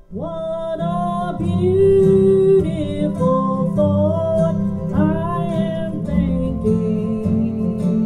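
Live country-gospel band playing the instrumental opening of a song: acoustic guitar and upright bass under a melody line whose notes slide up into pitch.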